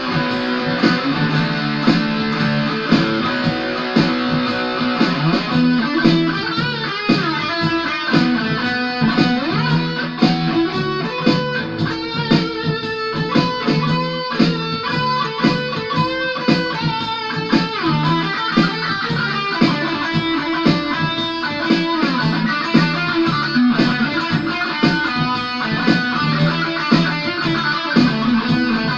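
Ibanez AS73 semi-hollow electric guitar playing single-note lead runs in the key of E, over a steady low accompaniment.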